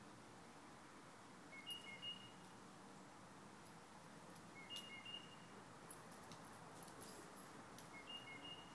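A songbird repeats a short phrase of high whistled notes about every three seconds, three times, faint over a quiet outdoor background.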